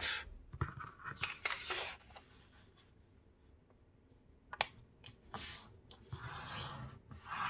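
A sheet of paper being folded in half on a tabletop: dry rustling and sliding, a quiet spell, a single tick about four and a half seconds in, then a longer rubbing as a hand presses along the crease.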